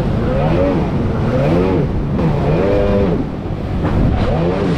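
Jet ski engine revving up and down over and over, its pitch rising and falling about once a second as the craft rides over waves, over a steady rush of noise.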